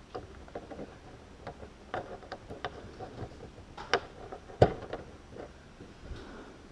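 Irregular small clicks and knocks of hands handling a metal helping-hands soldering stand, its alligator clips and magnifier, with a quadcopter board and wired motors on a cutting mat; one sharper knock about two-thirds of the way through.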